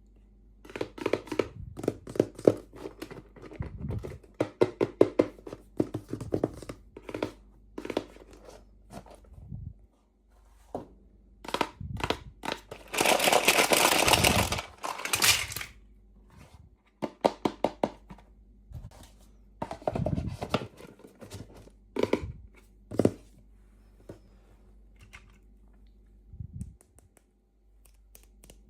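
Toy packaging handled and opened by hand: crinkling and tapping with many short clicks, and one longer tearing sound about halfway through.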